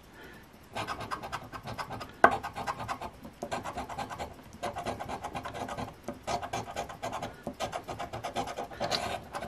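A silver coin scratching the coating off a paper lottery scratch ticket in quick repeated strokes, in runs with a few short pauses, starting about a second in. A single sharp click comes a little over two seconds in.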